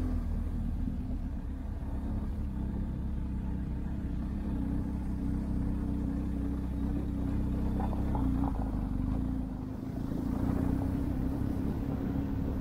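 Motorcycle engine running steadily on the move, a constant low rumble. The rumble drops for a moment about ten seconds in, then returns.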